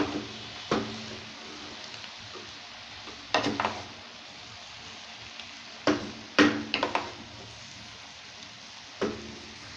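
Wooden spatula stirring and tossing cooked basmati rice in a nonstick frying pan: a steady low sizzle of frying, broken by several sharp knocks and scrapes of the spatula against the pan at irregular intervals.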